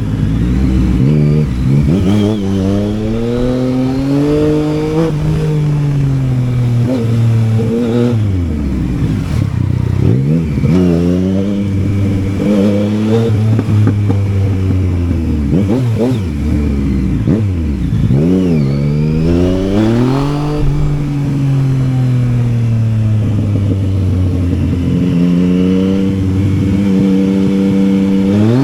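Yamaha Tracer 900's three-cylinder engine under way, its pitch climbing under throttle and dropping sharply several times as the bike accelerates, shifts and slows.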